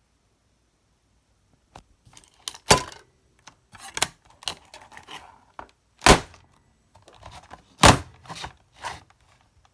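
Clatter and knocks of a Mintek MDP-1810 DVD player being handled, with three loud, sharp thumps among smaller clicks and taps.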